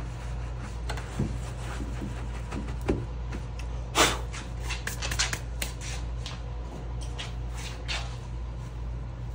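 Clear plastic sheeting and towels being handled around a marble figure, with a couple of soft knocks, then a sharp crackle about four seconds in and a scatter of smaller crackles over the next few seconds. A dust-extraction fan hums steadily underneath.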